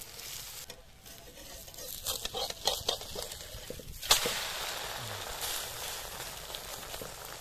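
A flat metal spatula scrapes and taps against a metal kadai as an egg omelette fries. About four seconds in there is a sharp clatter as the omelette is flipped, followed by steady sizzling.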